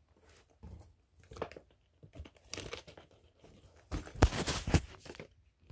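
Wrapping being torn and crumpled by hand in several short bouts, the longest and loudest about four seconds in.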